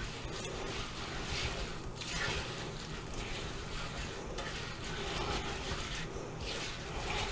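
A spoon stirring oats and chopped pecans through a thick, sticky chocolate-peanut butter mixture in a saucepan: a wet, scraping swish that repeats about once a second.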